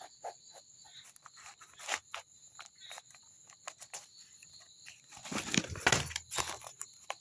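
Scattered light clicks and taps of handling, with a louder cluster of rustling knocks about five to six seconds in, over a faint steady high-pitched drone.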